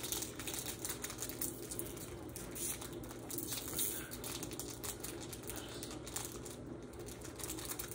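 Pokémon trading cards and booster-pack wrapper being handled: light rustling and soft clicks as cards are flipped and sorted, over a steady low hum.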